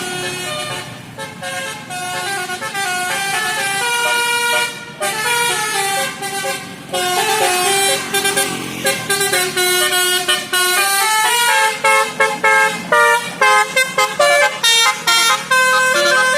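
Bus telolet horn, a multi-trumpet musical air horn, playing a melody in held notes that step up and down in pitch, several sounding together, then breaking into quick short honks over the last few seconds.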